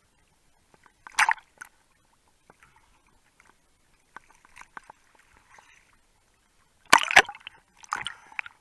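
Sea water sloshing and splashing around a diver at the surface: a brief loud splash about a second in, quieter lapping, then a louder cluster of splashes and bubbling near the end as the diver goes under.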